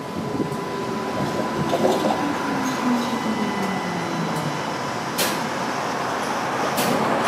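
Older electric streetcar running on its rails, heard from inside, with a motor whine that falls steadily in pitch over the first few seconds as the car slows. Two sharp clicks, about five and seven seconds in.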